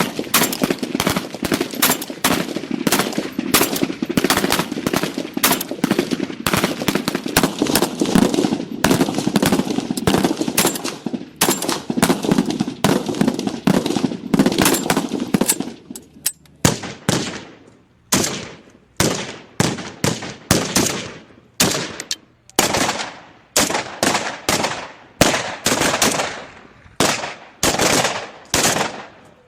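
AK-47 rifle gunfire: rapid automatic fire for about the first half, then separate single shots at about two a second, each with a short echoing tail.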